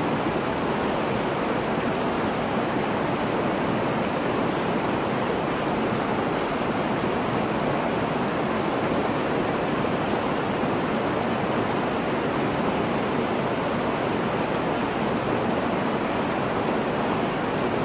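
Whitewater of a small waterfall pouring over sandstone ledges: a steady, unbroken rush of falling water.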